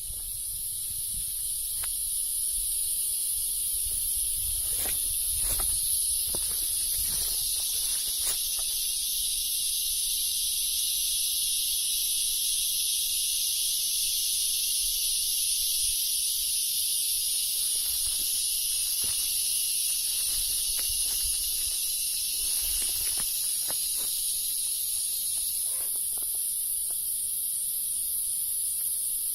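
Dense insect chorus of forest ambience: a continuous, very high-pitched, fast-pulsing buzz, joined about two seconds in by a second, lower-pitched chorus that swells and fades out near the end. A few faint ticks sound now and then.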